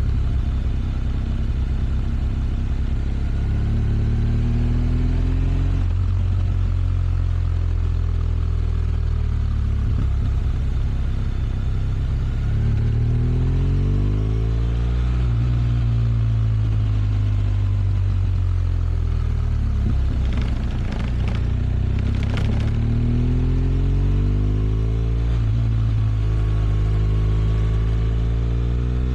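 BMW R1200 RS flat-twin boxer engine running, its pitch rising and falling several times as it is revved up and eased off. A few sharp clicks come about two-thirds of the way through.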